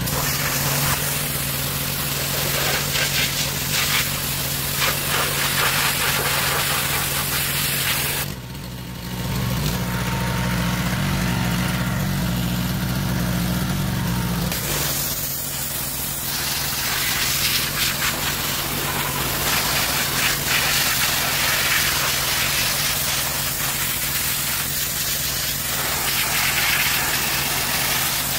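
Gas-engine pressure washer running steadily, with the hiss of its water jet blasting a transmission case. For several seconds in the middle the spray stops and the engine note changes, then the spraying resumes.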